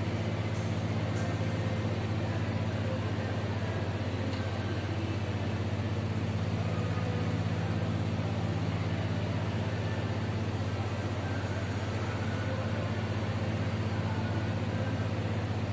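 Steady low mechanical hum with an even wash of noise over it, unchanging throughout.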